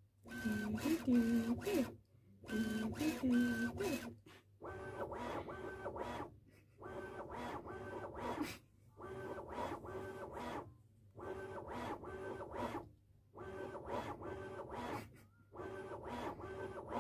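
Bambu Lab 3D printer's stepper motors playing their calibration "song": a run of buzzing machine tones in bursts about a second long with short gaps between, the first two lower and sliding in pitch, the rest a steady repeating pattern.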